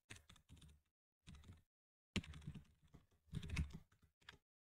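Faint computer keyboard typing in several short runs of keystrokes with brief pauses between them.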